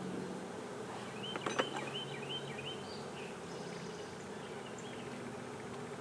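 Honeybee swarm buzzing steadily around an open hive box. About a second and a half in come a couple of sharp clicks, along with a run of short, high, rising chirps.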